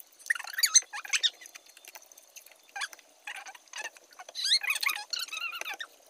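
Wet, squeaky slurping and sucking of jelly cups being eaten, in a string of short squeaks with a longer run about four and a half seconds in.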